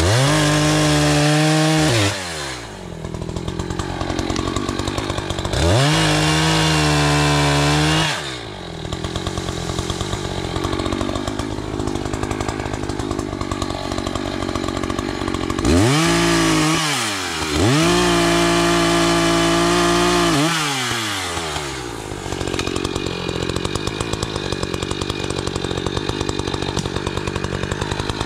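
ECHO CS-590 Timber Wolf two-stroke chainsaw cutting saplings. It is revved to full throttle four times, each burst lasting a second or three, and drops back to idle between bursts. It idles steadily for the last several seconds.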